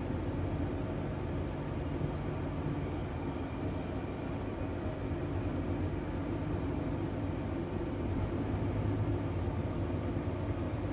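Truck engine and road noise heard from inside the cab while driving: a steady low rumble.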